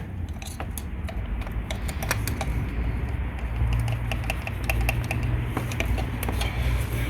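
Irregular clicks, ticks and small knocks of parts being worked by hand in the engine bay, over a steady low rumble, as the thermostat housing is wiggled against a bolt still holding it.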